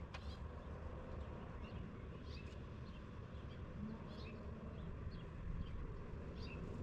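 Low steady background rumble with faint, scattered chirps like small birds calling, and a few light clicks.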